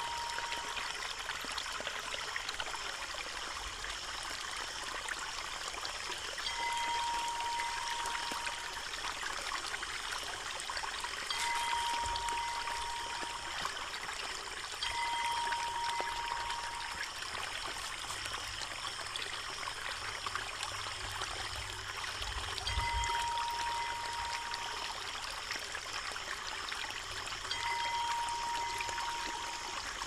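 Water pouring in a steady stream from a bamboo spout and splashing onto rocks into a shallow pool. A thin, steady high tone comes and goes every few seconds over the water, each time for about two seconds.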